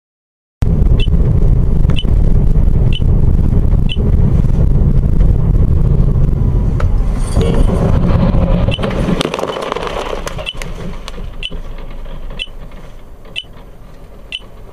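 Car road and engine rumble heard from inside a moving car, with a light tick about once a second. The rumble fades away over the second half.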